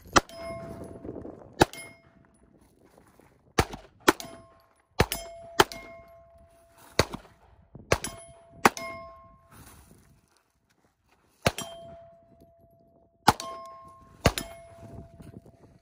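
About a dozen pistol shots, fired singly and in quick pairs at an uneven pace. Each hit is followed by the clear, fading ring of a struck steel target plate.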